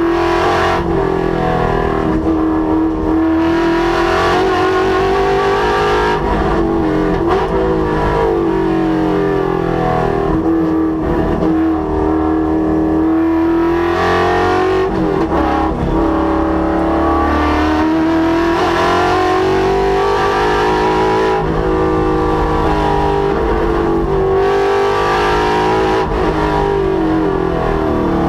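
Ford Mustang's Coyote 5.0 V8 being driven hard on track, its engine note climbing through the revs and dropping again, over and over, as the car accelerates, shifts and slows for corners.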